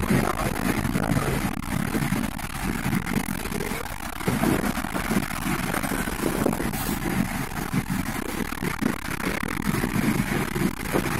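Steady road and engine noise heard from inside a moving car's cabin, with an uneven low rumble.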